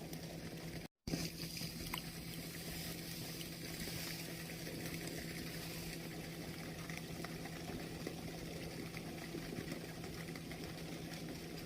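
Steady rush of water flowing through a small seaside sluice gate, with a faint low steady hum underneath. The sound cuts out completely for a split second about a second in.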